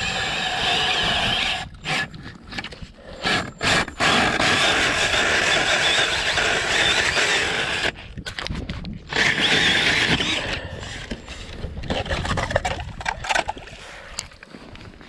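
Ice auger driven by a cordless drill, grinding through lake ice in several bursts of a few seconds each; the longest runs about four seconds, with short pauses between.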